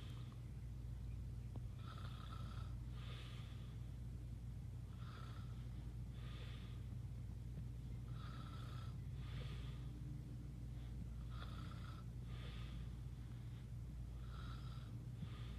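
Heavy snoring in sleep: about five slow breaths, one roughly every three seconds, each with a noisy in-breath and out-breath less than a second apart. A steady low hum runs underneath.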